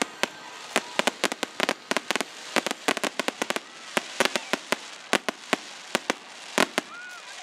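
Fireworks finale: an irregular, rapid string of sharp pops and bangs, several a second, over a steady hiss.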